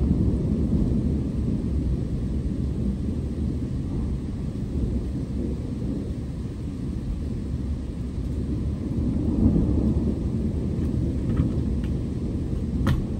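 Distant thunder rumbling low and continuously, swelling briefly about two-thirds of the way through, with a sharp click near the end.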